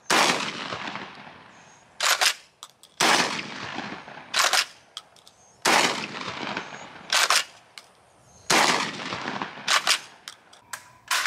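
UTAS UTS-15 12-gauge bullpup pump-action shotgun fired four times at an even pace, each shot followed by a long fading echo. About a second and a half after each shot comes a quick double clack as the pump is worked to chamber the next shell.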